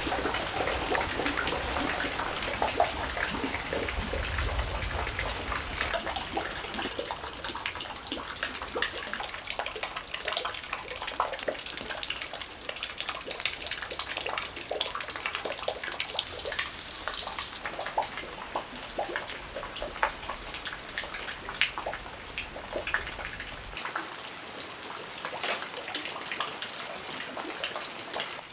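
Steady heavy rain during a thunderstorm, a dense hiss full of small crackling drop impacts. A low rumble underlies the first few seconds and fades away.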